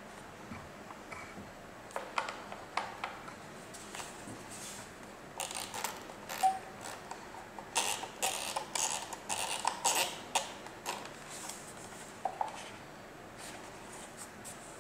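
Plastic clicks and rattles from handling a Philips GC1905 steam iron, its buttons pressed and its temperature dial turned. A few scattered clicks, then a dense run of clicking through the middle, with a couple more near the end.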